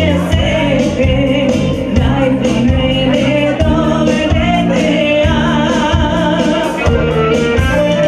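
A woman singing a Bulgarian folk song live into a microphone over amplified backing music with a steady beat.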